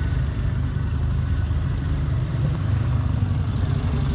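Car engine running at low revs, a steady low rumble, as a car drives slowly past.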